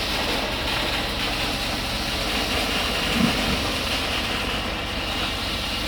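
Heavy engine running steadily, the machinery noise of a concrete pour, with one brief knock about three seconds in.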